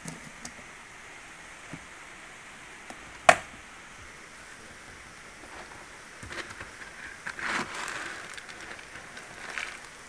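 A single sharp knock about three seconds in, then soft, intermittent rustling and shuffling.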